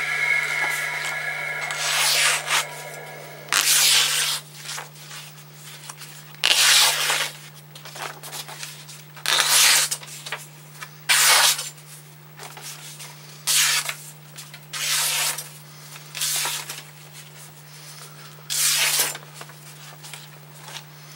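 Large Bowie knife slicing through stiff, heavy paper: about nine short cutting strokes a second or two apart, each a brief papery hiss. The cuts test the freshly sharpened and stropped edge, where a leftover burr would make the blade hang in the paper. A machine's steady whine stops about two seconds in.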